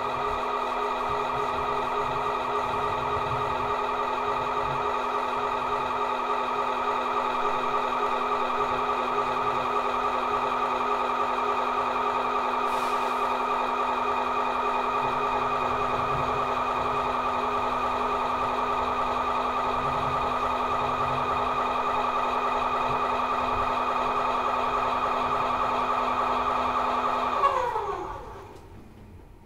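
A steady drone of several held tones that slides down in pitch and dies away near the end.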